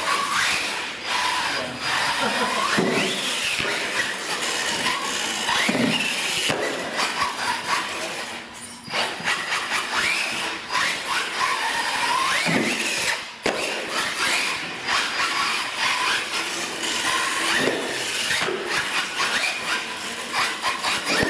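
Electric RC monster truck motor whining, its pitch rising and falling over and over as the truck speeds up and slows down, with tyres scrabbling on concrete and a few sharp thumps.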